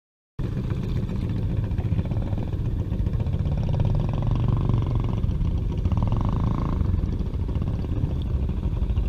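Honda Fourtrax ATV's single-cylinder engine running steadily under load as the quad wades through deep water. The sound cuts in about half a second in.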